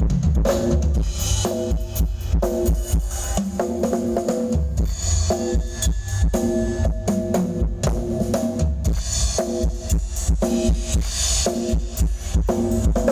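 Music with a drum kit playing a steady beat, strong bass drum and snare, and pitched instruments over it, played loud through a stage PA system during a sound check.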